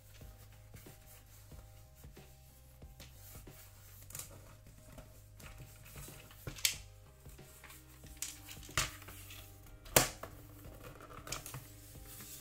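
Hard plastic Battleship game unit being handled: a few sharp plastic clicks and knocks, the loudest about ten seconds in, over soft background music.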